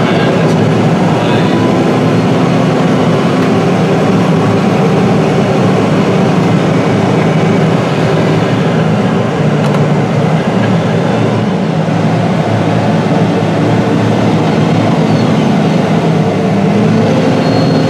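Deutz-Fahr 9340TTV tractor's six-cylinder diesel running steadily under load while pushing corn silage with a dozer blade, heard from the cab. Its note rises briefly near the end.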